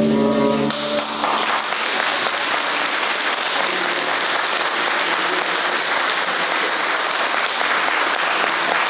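The held final chord of the music, with guitar, ends under a second in, and the audience breaks into steady applause.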